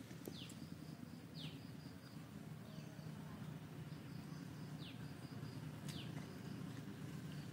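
Wild birds calling: a short call falling steeply in pitch, repeated about once a second. Under it runs a faint high chirping pulse series and a low outdoor background rumble.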